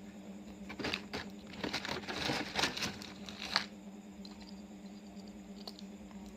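A run of crinkling, rustling handling noises lasting about three seconds, over a steady low hum.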